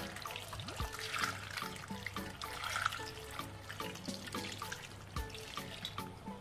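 Tap water pouring in a thin stream into a glass bowl of thinly sliced raw potatoes, splashing as the bowl fills, over background music.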